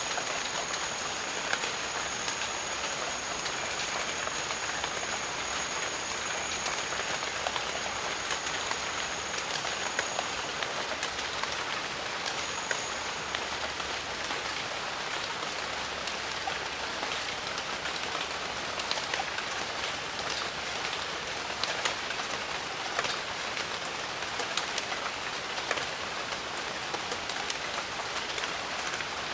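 Steady jungle rain, a continuous hiss dense with individual drop hits. A thin, high steady tone sounds over it for about the first ten seconds and returns briefly a little later.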